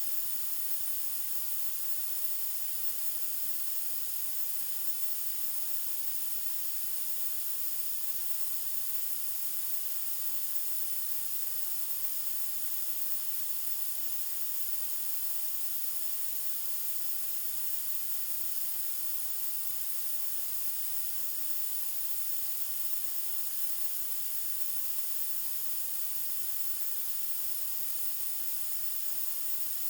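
Steady white noise: an unbroken, even hiss that does not change, its energy strongest in the high treble.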